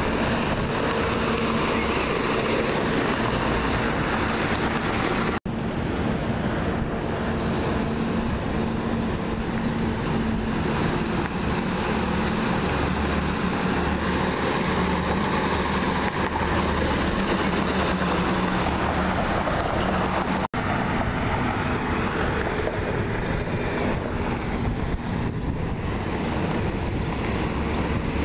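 City garbage trucks and cars passing on a street: a steady drone of truck engines mixed with tyre and traffic noise. The sound cuts out abruptly for an instant twice.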